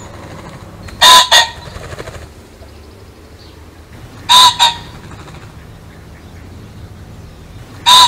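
Male pheasant calling: a loud, short two-note call about a second in and again about three seconds later, with a third starting right at the end, over a faint steady low background noise.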